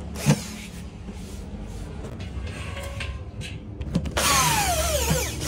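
Corded electric drill working into a laminated wood cabinet panel, with a sharp knock just after the start. About four seconds in the drill runs hard for about a second, its motor whine dropping in pitch as it slows.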